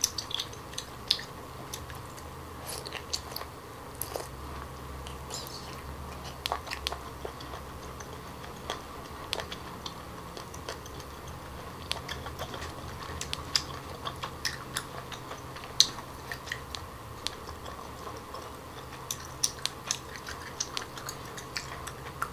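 Close-miked chewing of a cooked octopus tentacle with crunchy suckers: irregular soft wet mouth clicks and smacks throughout, over a faint steady hum.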